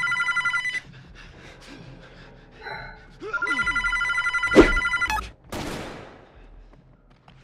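Telephone ringing with an electronic trill: the tail of one ring, then a second ring of about two seconds with a sharp knock in the middle. The ring cuts off as the phone is answered, followed by a brief rustle.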